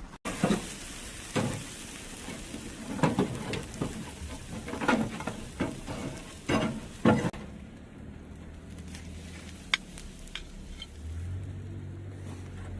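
Steaks sizzling on a grill, with a run of knocks and scrapes from handling them for about the first seven seconds. The sizzle then drops away, leaving a low steady hum and a few light clicks.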